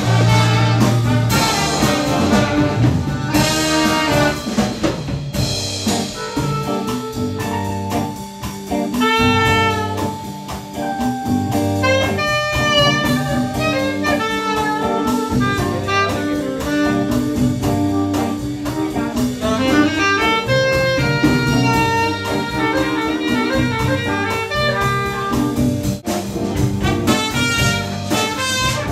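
Jazz band playing an up-tempo number, horns (saxophone and trumpet) carrying the melody over a drum kit.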